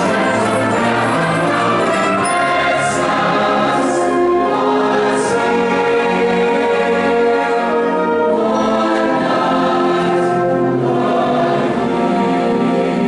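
High-school choir singing, with a large concert band accompanying them.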